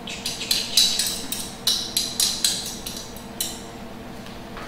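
A metal utensil clinking against a bowl while mashing ripe bananas: a quick run of about a dozen light, ringing clinks, roughly three a second, that stops about three and a half seconds in.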